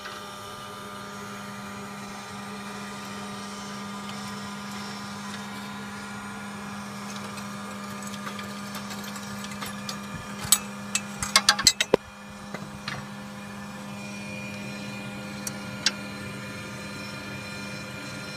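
Steady mechanical hum while a 7¼-inch gauge live-steam locomotive is fired for the first time. A quick cluster of sharp metal clinks comes about ten to twelve seconds in as the fire is tended at the firebox door, with single clinks a little later.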